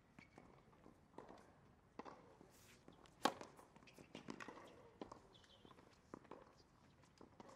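A tennis serve: one sharp crack of the racket striking the ball about three seconds in, among faint taps and scuffs of shoes on a hard court.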